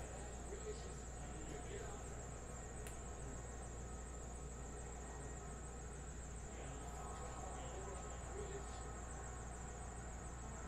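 Quiet room tone: a steady low electrical hum and a faint high whine, with a few soft rustles and taps from trading cards and plastic top loaders being handled.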